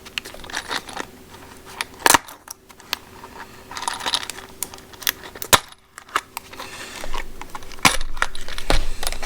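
Metal wood screws clicking and jingling against each other in their box as it is handled, in scattered clicks and short rattling runs, busiest near the end.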